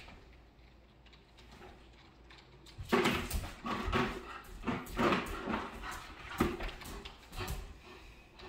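Yellow Labrador biting and tugging at a plastic bucket: a run of sharp plastic crackles and knocks starting about three seconds in, the bucket cracking under the dog's teeth.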